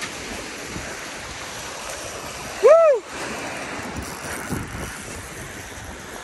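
Wind buffeting the microphone over breaking surf. About three seconds in comes one short, loud, high call that rises and falls in pitch.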